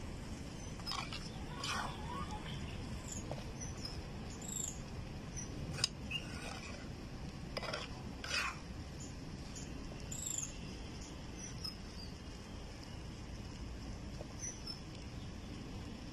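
Flat metal spatula scraping and turning egg bhurji on an iron tawa, a few short scrapes spread through, the sharpest about six seconds in. Small high chirps of birds sound now and then behind it.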